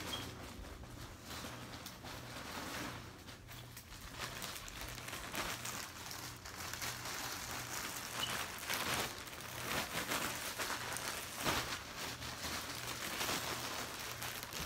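Nylon windbreaker and clothing rustling and crinkling as they are moved and handled, in irregular swishes with a few louder swells in the second half.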